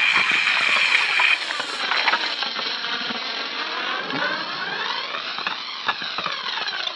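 Processed electronic noise, a hissing wash full of crisscrossing rising and falling sweeps with scattered crackles. It gets somewhat quieter and duller about a second and a half in.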